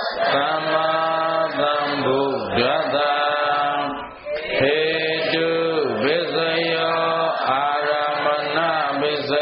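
A Buddhist monk chanting Pali in a slow, melodic recitation, holding long drawn-out notes, with a short pause for breath about four seconds in.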